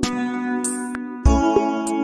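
Instrumental background music: held, ringing chords that change about a second in, with light sharp ticks over them.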